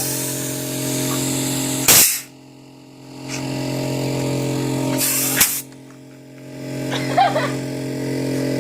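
An air compressor running with a steady hum, and two short hissing blasts of compressed air about two and five seconds in.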